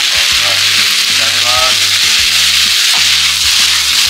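Sliced onions sizzling steadily in hot chili- and Sichuan-peppercorn-infused oil in a frying pan, stir-fried over high heat while a large spoon turns them.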